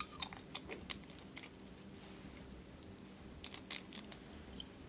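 Scattered light clicks and taps of a glass turbidimeter sample cell and its cap being handled by gloved hands during rinsing: several in the first second, another cluster about three and a half seconds in.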